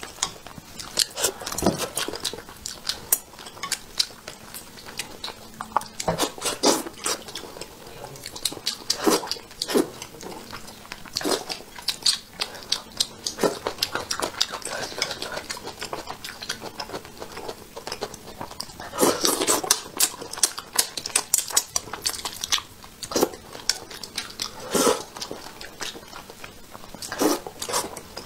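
Chopsticks clicking and scraping against a dish while picking at braised fish, mixed with chewing and mouth sounds of eating, as irregular clicks and smacks.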